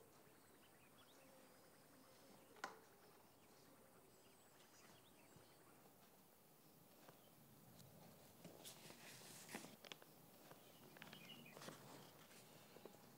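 Near silence: quiet room tone with a single faint click a few seconds in and soft scattered rustling in the latter half.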